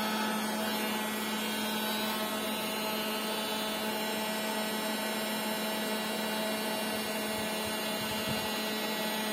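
Steady whir and electrical hum of a LiFePO4 power bank's built-in 1200 W inverter and its cooling fan running under a heavy load of about 100 A (roughly 1.2 kW), with a constant low hum tone underneath.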